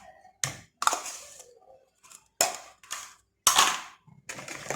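A spoon knocking sharply against a yogurt pot and mixing bowl, about five taps with softer scraping between them, as the last of the yogurt is scraped out into the batter.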